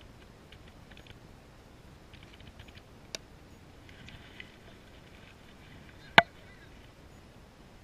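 A single sharp crack of a cricket bat hitting the ball about six seconds in, much louder than anything else, with a fainter sharp click about three seconds in.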